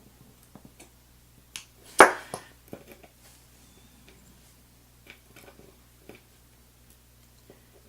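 Light clicks and taps of small metal lock pins and tools being handled as a Medeco Original lock cylinder is taken apart, with one sharper click about two seconds in.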